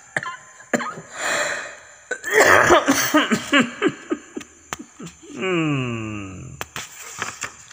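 A man laughing: a breathy laugh, then a quick run of laughs, then a long falling vocal tone.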